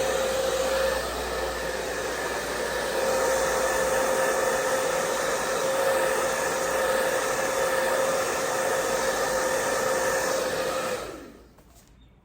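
Handheld hair dryer blowing steadily, drying the Got2b glue spray under a wig's lace frontal; it is switched off about eleven seconds in and winds down.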